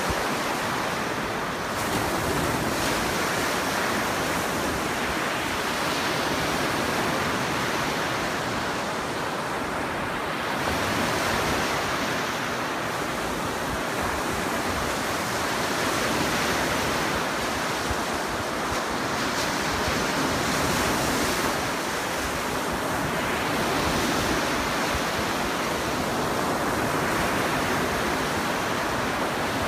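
Lake Superior surf: waves breaking and washing up a sand-and-pebble beach, a continuous rush that swells every few seconds as each wave comes in.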